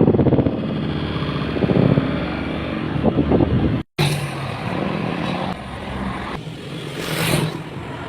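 Motor vehicle engine running steadily. It cuts off abruptly about four seconds in, and road traffic noise follows, swelling twice.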